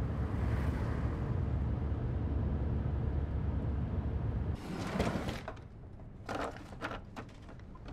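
Steady low rumble inside a car cabin, which stops suddenly about four and a half seconds in. Then a drawer slides open, followed by a few light clicks and rattles of small items being handled in it.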